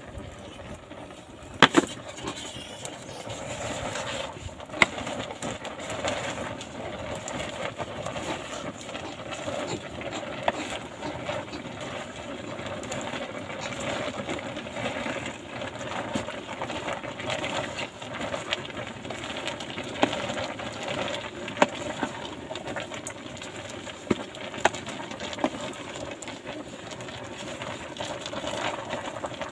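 Large pot of chopped pig feed boiling over a wood fire and stirred with a wooden spoon: a steady hiss of cooking, with a few sharp knocks of the spoon and pot, the loudest about two seconds in.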